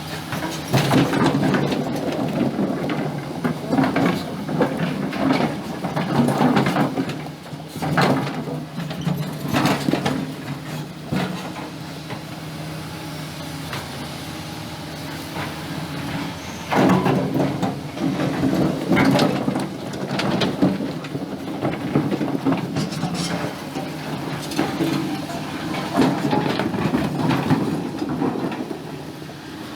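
Hydraulic excavator's diesel engine working while digging stones in a river, its pitch steady underneath and swelling in loud surges as it takes load, with sharp clanks and clatters of rock mixed in.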